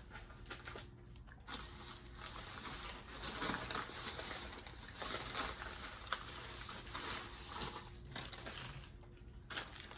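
Dry crackling and crunching of small dried strawberry and banana fruit snacks being eaten and handled, in uneven bursts from about a second and a half in until near the end.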